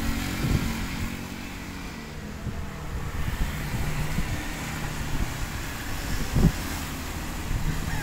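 Strong wind buffeting the microphone: a continuous low rumble with irregular gusty thumps, over a faint steady low hum.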